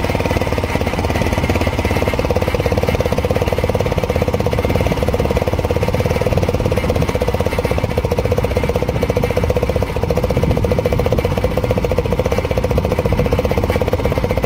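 Scooter's single-cylinder engine idling with an empty plastic bottle wired onto the exhaust outlet, giving a steady, rapid pulsing exhaust note. The bottle is a homemade trick meant to make the scooter sound like a Bullet motorcycle.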